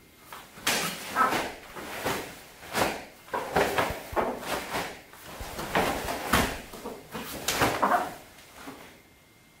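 A taekwondo dobok snaps sharply with each punch and kick of a poomsae form, together with bare feet landing on the mat. There are about a dozen snaps in quick, irregular groups.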